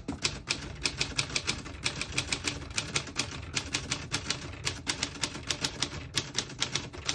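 1946 Smith-Corona Silent portable typewriter being typed on at a steady pace, a rapid, irregular run of key strikes several a second, with the ribbon set to print red.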